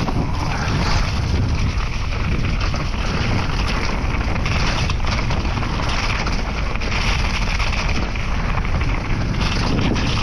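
Wind rushing over an action-camera microphone while a full-suspension mountain bike rolls down a trail, with steady tyre rumble and frequent small knocks and rattles from the bike.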